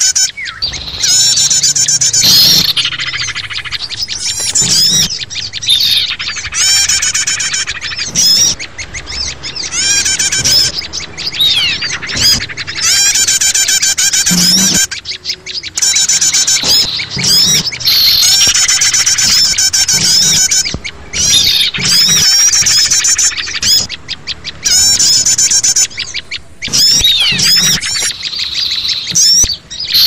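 A noisy chorus of many kinds of small songbirds chirping, trilling and calling over one another: a mixed bird-lure recording meant to draw in wild birds. Calls overlap densely, with rapid trills and quick up-and-down whistles, broken by a few short dips.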